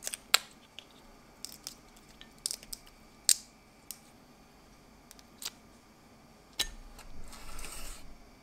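Raw shrimp being peeled by hand: a string of sharp, crisp clicks as shells and legs snap off. Near the end, a knock, then about a second of scraping as a knife cuts along a shrimp on a wooden cutting board.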